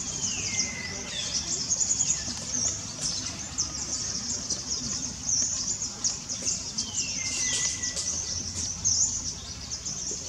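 Steady high-pitched chirping of birds and insects. Two whistled calls slide down and level off, one near the start and one about seven seconds in.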